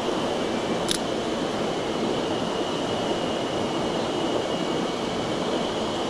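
Mountain stream rushing over rocks, a steady, even watery rush. A single short click comes about a second in.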